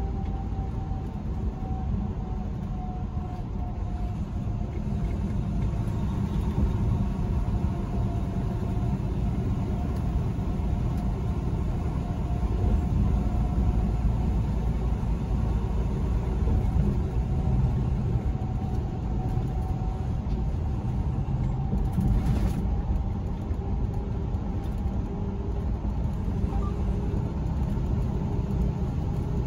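Steady low rumble of engine and road noise inside a semi-truck's cab at highway speed, with a faint steady hum over it and a short hiss about three quarters of the way through.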